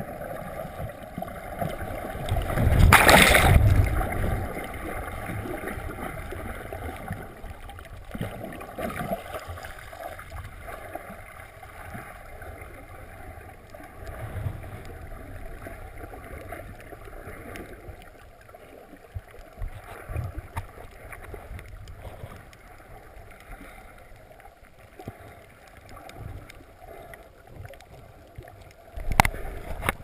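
Muffled underwater water noise picked up through a GoPro's waterproof housing, with a low rumble. There is a loud burst of rushing, splashing water about three seconds in, and another splash near the end as the camera nears the surface.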